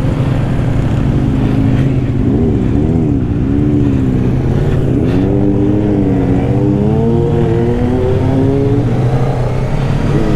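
Honda Rebel 500's parallel-twin engine running under way, its pitch rising and falling several times with throttle and gear changes, then climbing steadily from about halfway through.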